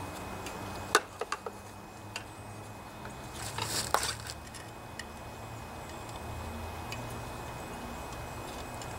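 Handling a just-removed metal valve cover and gasket from a small OHV engine: a sharp click about a second in, a few quick ticks, then a brief rustling scrape near the middle, over a low steady background hum.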